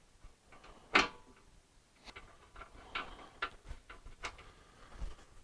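Scattered light clicks and taps of hand tools and fender bolts and lock nuts being handled and started by hand, the sharpest click about a second in.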